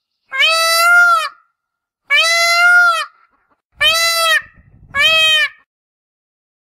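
Indian peafowl calling: four loud, drawn-out calls in quick succession, each under a second long, with short silences between them.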